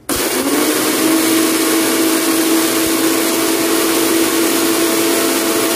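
Electric kitchen blender running, chopping garlic, ginger, onion and chili into a paste. It starts right away, its pitch rising briefly as the motor spins up, then runs loud at a steady pitch.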